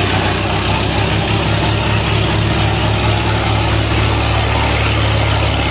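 Diesel tractor engine running with a steady low hum, which pulses for the first few seconds and then evens out.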